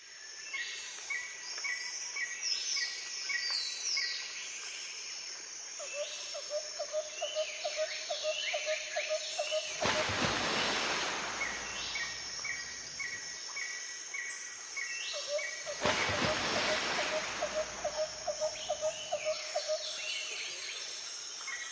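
Several wild birds singing together, with a clear note repeated about two or three times a second and many short whistled sweeps. Two runs of a lower note repeated about four times a second are also heard. A rushing noise swells twice, each time for about two seconds.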